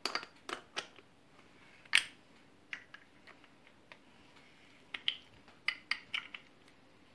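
Metal clicks and scrapes of a special wrench turning the top nut of a cream separator's aluminium bowl, tightening it down to the stop. A sharp click comes about two seconds in, and a quick run of clicks near the end.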